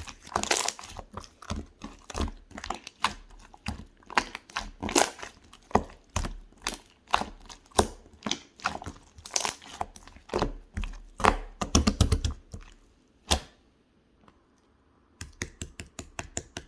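Blue clear slime being squeezed and poked by hand, giving irregular sharp pops and crackles. It stops briefly a little after two-thirds in, then comes back as quick, evenly spaced pops, about three a second, near the end.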